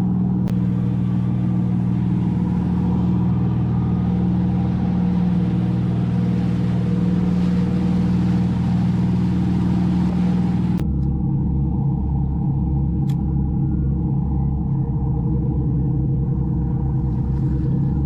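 Boat engine running steadily underway, a constant low drone with a rushing hiss over it. About 11 s in the hiss drops away suddenly and a lower, pulsing engine drone remains.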